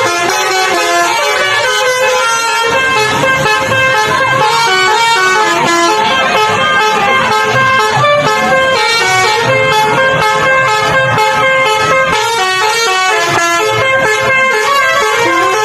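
A tour bus's Basuri telolet horn playing a tune, a steady run of short notes stepping up and down in pitch without a break.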